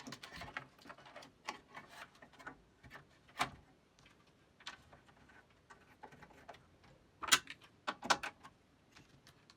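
Irregular clicks and taps of a circuit board and its parts being fitted onto plastic standoffs inside a computer case, with sharper snaps about three and a half, seven and eight seconds in.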